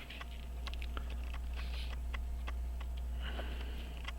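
Small scattered clicks and ticks of metal tweezers and tiny watch parts being handled on the bench, over a steady low hum.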